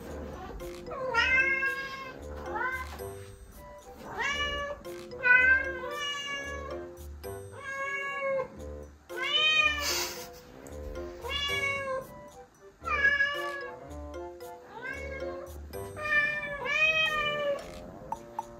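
Cats meowing over and over, more than a dozen drawn-out meows that each rise and fall in pitch, begging for food. Background music with a steady beat plays underneath.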